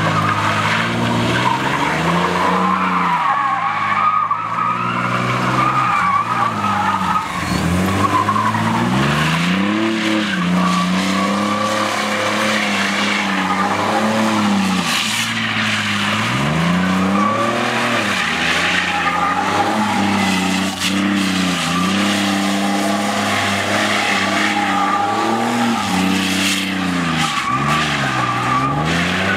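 Chevy S-10 Blazer's V6 revving hard through a burnout and donuts, rear tyres spinning and squealing without a break. The engine revs dip and climb again every few seconds as the truck swings around.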